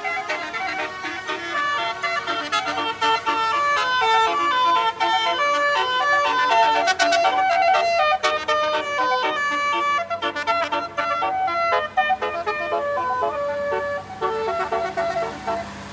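Tour-bus multi-tone 'telolet' horns playing a quick melody of stepping notes, with a short dip about fourteen seconds in.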